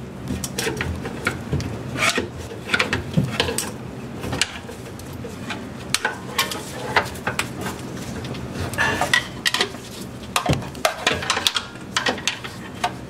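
Metal tools clinking and knocking against a 1990 Honda CRX alternator and its mounting as it is pried and worked loose: many sharp, irregular metal clinks and scrapes.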